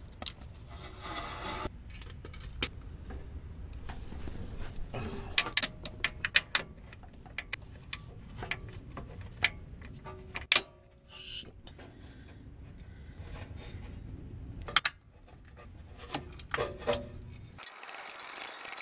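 Socket ratchet clicking and metal tools clinking against fittings under a car, a string of scattered sharp clicks over a low steady rumble that stops near the end.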